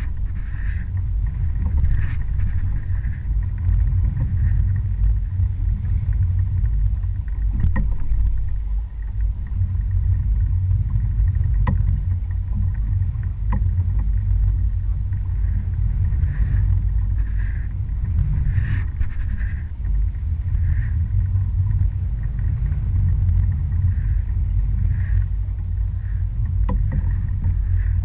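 Small boat under way: its engine runs with a steady low rumble, mixed with wind and water noise.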